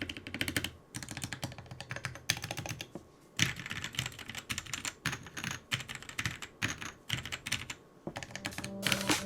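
Typing on a mechanical keyboard fitted with pre-lubed Gateron Cap Yellow linear switches: fast runs of key clacks, broken by short pauses about three seconds and eight seconds in.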